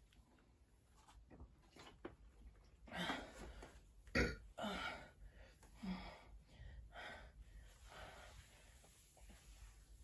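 A baby burping, with small breathy grunts: about six short sounds over a few seconds, the loudest and sharpest about four seconds in.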